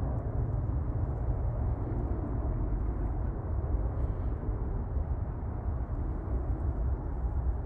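Steady low outdoor rumble, strongest in the deep bass, with no distinct sounds standing out.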